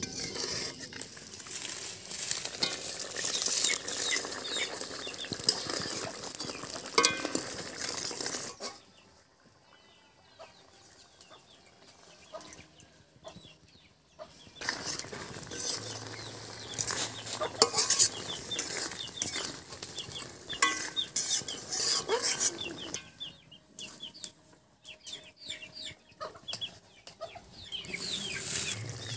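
Metal cooking utensils stirring and clinking in a metal curry pot, with chickens clucking nearby. There are quieter stretches between bouts of clatter.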